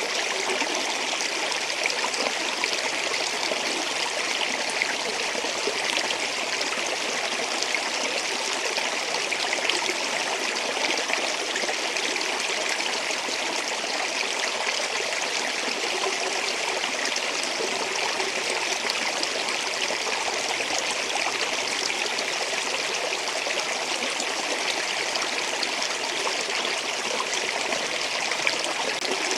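Water flowing over rocks in a stream or small waterfall, a steady unbroken rushing with fine splashing.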